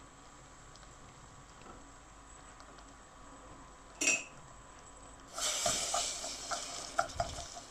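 Sugar and golden syrup caramel bubbling faintly in a saucepan, with a single clink about four seconds in. From about five seconds a metal spoon stirs the boiling syrup, with a hissing noise and repeated clinks of the spoon against the pan.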